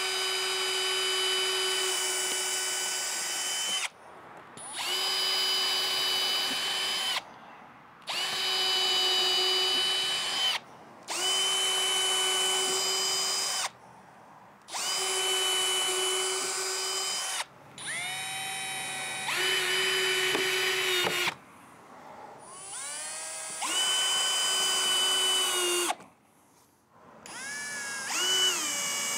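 Cordless drill boring pilot holes through a pine board into a wooden windowsill, then countersinking them: about eight runs of a couple of seconds each with short pauses between, the motor whining at a steady pitch. A few runs start with the motor speeding up.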